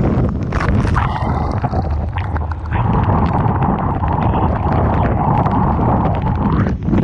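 Typhoon wind buffeting the microphone over heavy surf, a deep rumble throughout. From about a second in until near the end, a steady hiss joins it.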